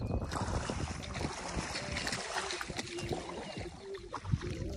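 Water splashing as a hooked fish is reeled in to the bank, loudest in the first couple of seconds and then lighter.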